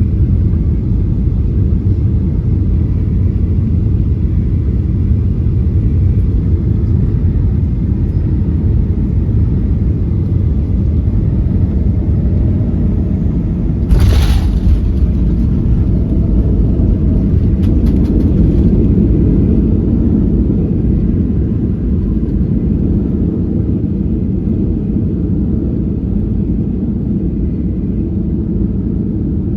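Airliner cabin noise from a window seat: a steady low rumble. About halfway through comes one sudden loud knock, followed by a few faint clicks. After that the rumble slowly eases off.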